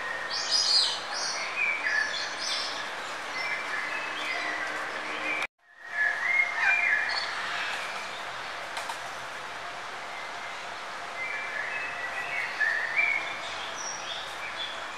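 Birds chirping in short bursts of twittering calls over a steady background hiss. The sound cuts out completely for a moment about five and a half seconds in, then resumes.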